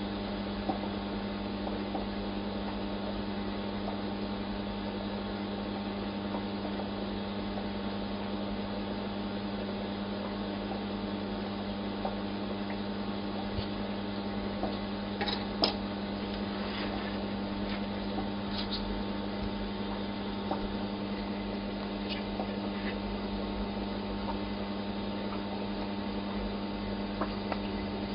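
Steady electrical hum, typical of an aquarium pump or filter running, with a few faint clicks about halfway through.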